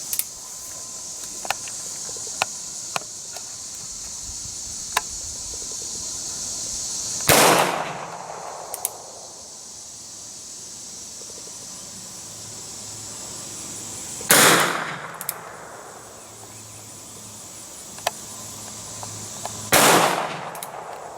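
Three revolver shots from a Ruger Single Seven bird's-head .327 Federal Magnum, firing light .32 S&W Long wadcutter loads. Each shot is a sharp crack with a short ringing tail, several seconds apart, with fainter sharp clicks in between.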